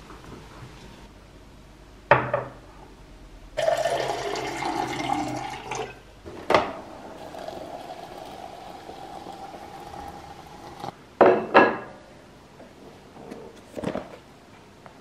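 Kitchen sounds around a glass electric tea kettle: a clunk, then water pouring for about two seconds, a clack, a steady note for a few seconds, then two sharp clacks and a knock of lids and containers near the end.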